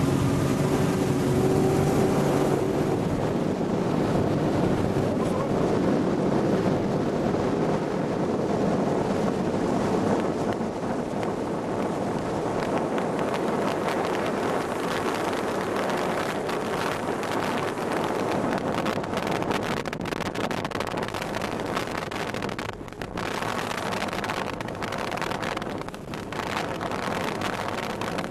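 Small watercraft engine running at speed. Its tone is clear for the first couple of seconds, then it is buried under steady wind on the microphone and rushing water.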